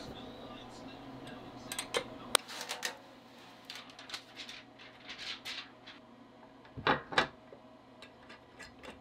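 Scattered clicks and knocks of plastic and metal parts as an Elegoo resin 3D printer's resin vat and build platform are handled and fitted, with two louder knocks close together about seven seconds in. A low hum stops abruptly about two and a half seconds in.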